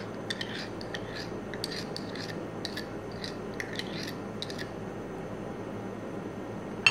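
Plastic spoon stirring a thick gel mixture in a small cup, with light scrapes and clinks against the cup's sides over the first few seconds, then one sharper clink near the end.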